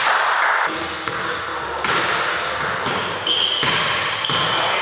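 Basketball bouncing on a hardwood gym floor: several separate thuds about a second apart, ringing in a large indoor court.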